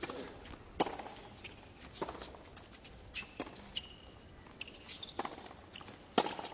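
Tennis serve and baseline rally on a hard court: tennis balls struck by racket strings, a sharp pop every second or so, over a quiet hush from the crowd.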